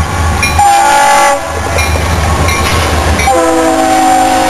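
Air horn of the lead Norfolk Southern EMD SD60M diesel locomotive sounding its chord: a short blast about half a second in, then a long blast starting a little after three seconds in. Under it runs the steady low rumble of the locomotives' diesel engines as they pass.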